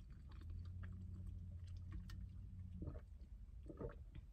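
Quiet sipping through a straw from a large insulated tumbler, with small mouth clicks and a couple of soft swallows about three and four seconds in, over a steady low hum.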